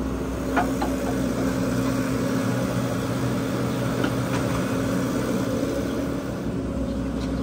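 Diesel engine of a JCB mini excavator running steadily while it works, with a couple of short knocks as the bucket digs and dumps soil onto a pile.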